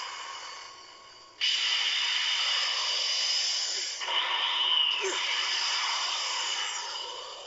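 Anime sound effects of an energy aura flaring and a fighter rocketing off: a loud hissing whoosh that fades, cuts back in suddenly about a second and a half in, with a higher whine rising and falling around four to five seconds, then fades near the end. Heard from a TV speaker as picked up by a phone.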